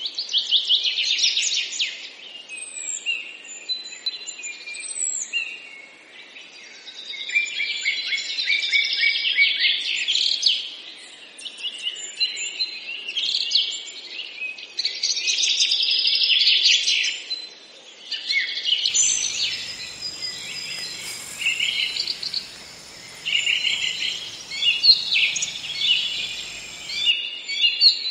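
Several small birds chirping in quick, dense bursts of short high notes. For several seconds past the middle, a steady high tone sounds under the chirps.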